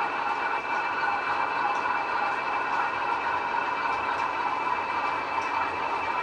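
Model railway train of VTG TEA tank wagons running steadily on the layout, a continuous rolling hum of wheels and locomotive with a few faint clicks.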